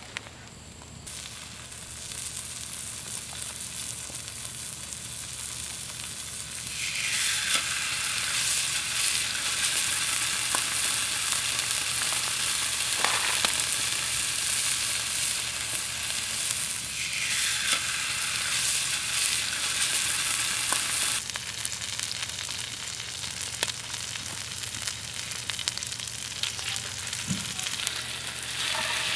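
Slices of pork belly sizzling in hot oil on a griddle pan, a steady frying hiss that gets louder about seven seconds in and eases a little after about twenty-one seconds, with a few light clicks.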